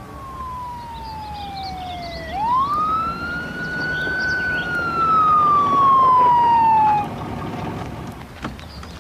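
Police car siren wailing: a falling tone, a quick rise about two seconds in, then a long slow fall, cutting off suddenly about seven seconds in, over a vehicle's low rumble.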